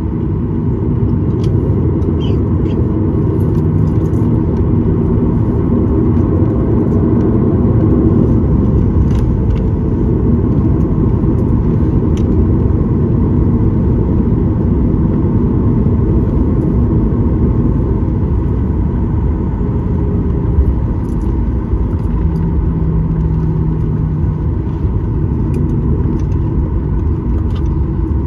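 Boeing 737-900 cabin noise while taxiing: a steady low rumble from its CFM56-7B jet engines at taxi power, with a few faint ticks and rattles.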